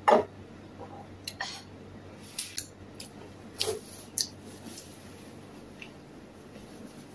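A ceramic soup pot set down on a wooden table with one sharp knock, followed by a few short wet clicks and smacks of eating and chewing.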